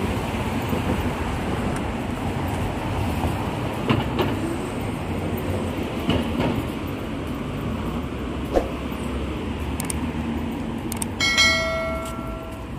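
Steady city street noise of passing road traffic, with a few faint knocks. Near the end, a short chime of several pitches rings for under a second: the sound effect of a subscribe-button animation.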